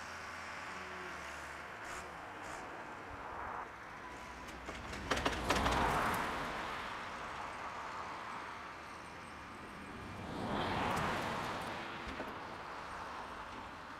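Distant Volvo tractor engine running as it works snow, swelling twice: about five seconds in, with a cluster of sharp knocks, and again around eleven seconds.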